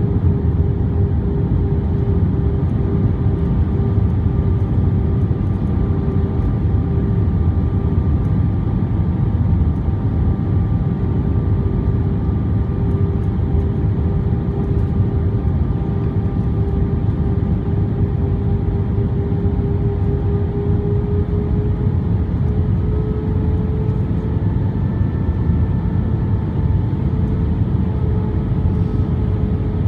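Cabin noise over the wing of an Airbus A320 on final approach with flaps extended: a steady low roar of its IAE V2500 turbofans and the airflow, with a steady engine whine that rises slightly in pitch about two-thirds of the way through.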